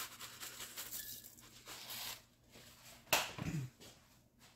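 Dried minced onion being shaken from its container into a saucepan of white sauce, with faint light rattles, and a brief vocal sound that falls in pitch about three seconds in.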